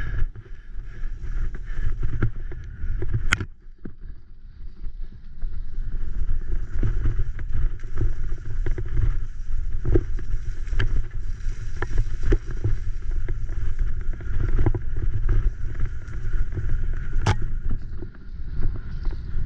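Graziella bicycle bumping fast down a wet, muddy dirt trail: a steady low rumble of tyres and frame over rough ground, with sharp rattles and knocks at each bump, easing for a moment about four seconds in.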